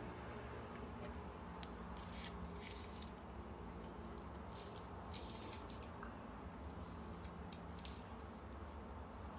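Soft clicks and rustles of a ceramic mug being handled and sipped from, with a cluster of small sips and clinks about halfway through, over a low steady room hum.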